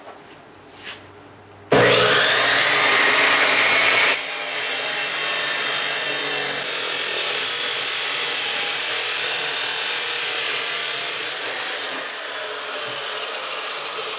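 A power tool starts suddenly about two seconds in and runs loud and continuous, cutting or grinding through material with a harsh rasping noise, then eases to a somewhat lower level near the end.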